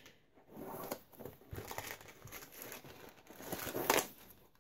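Canvas high-top sneaker being handled and unlaced: irregular rustling and scraping of the laces pulled through the eyelets and the canvas flexing, with a louder scrape about four seconds in.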